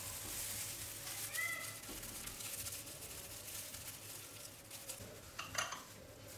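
Quiet kitchen counter handling of glass bowls: a short squeak about a second and a half in, and a few light clinks near the end.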